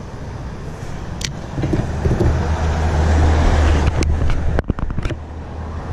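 A motor vehicle passing on the road, swelling to its loudest about three seconds in and then dropping away. A few sharp clicks come near the end.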